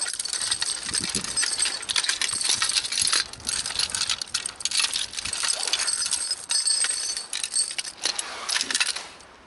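Steel chain links of a Maggi Trak snow chain jangling and clinking as the chain is unfolded by hand, with sharper clacks among them. The jangling dies away near the end.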